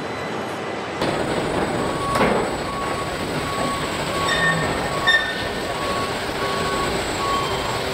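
Automated car-body assembly line running: a steady mechanical hum and hiss of robots and conveyors. From about a second in, an electronic warning beeper repeats about one and a half times a second, with a brief hiss and a few short higher tones mixed in.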